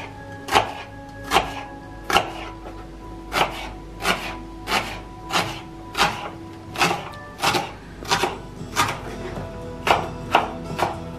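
Kitchen knife chopping an onion on a cutting board: a run of sharp knocks, unevenly paced at roughly one to two a second, over background music.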